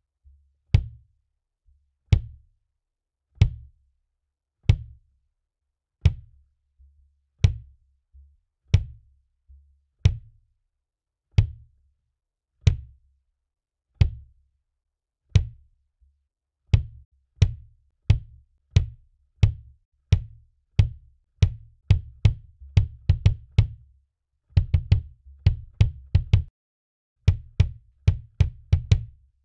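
Gretsch Renown maple 22×18 kick drum, with an Evans EMAD 2 batter and a Remo P3 Ebony resonant head, struck by a pedal beater. Each stroke is a sharp click followed by a short low boom. At first there are single strokes about every 1.3 s with soft ghost strokes between; from about halfway they come faster, in doubles and quick runs.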